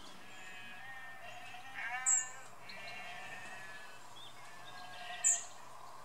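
Sheep bleating, several long wavering calls one after another. Two short, sharp high-pitched sounds, about two seconds in and near the end, stand out as the loudest moments.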